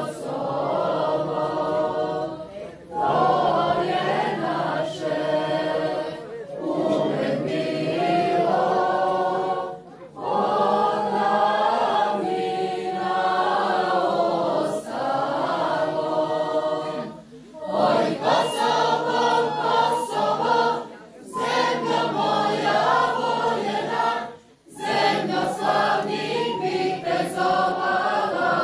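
Voices singing a slow, unaccompanied religious-style song in phrases a few seconds long, with short pauses for breath between them.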